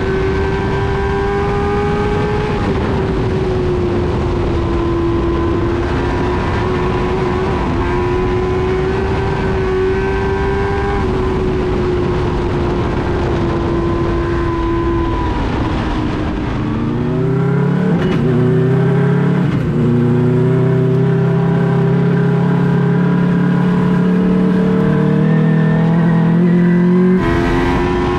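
Race car engine heard from inside the cockpit at speed, running at high revs with its pitch dipping and recovering in turn. About two-thirds through the note swoops down and a deeper, slightly louder drone takes over, then the sound changes abruptly near the end.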